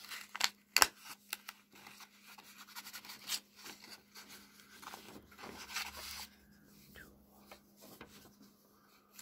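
Paper coin wrapper being peeled open by hand: stiff kraft paper crinkling and rustling in short scratchy crackles. The crackles are loudest in the first few seconds and grow sparse toward the end.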